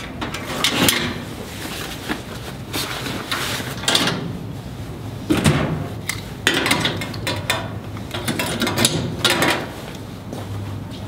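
Metal school locker being worked: a series of clanks and latch clicks as it is opened, rummaged in and shut, the loudest clank about halfway through.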